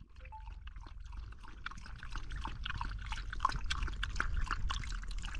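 Dog lapping water from the cup of a portable pet water bottle: a rapid, irregular run of wet licking clicks that grows louder after about a second.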